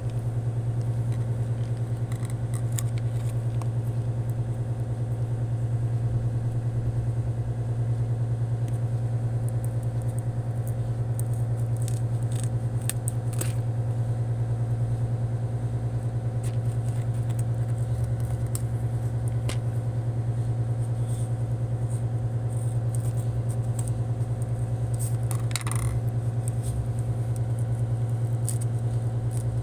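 A steady low hum, like a motor running, with scattered small clicks and crackles over it, a cluster of them about midway and another near the end.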